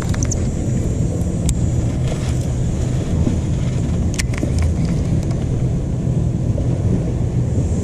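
Old Town Autopilot 120 kayak's trolling motor humming steadily as spot lock holds the kayak in place. A few sharp clicks sound over it.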